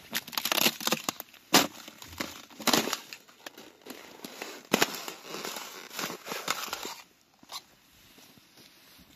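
Irregular crackling and crunching with several sharp knocks among it, stopping about seven seconds in.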